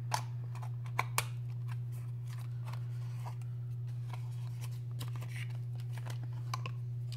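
Hands handling a makeup kit's packaging: a string of light clicks and taps, the sharpest near the start and twice about a second in. A steady low hum runs underneath.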